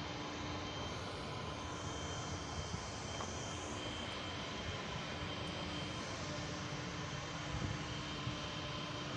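Steady mechanical drone of distant industrial plant machinery, an even rushing noise with faint steady hums underneath.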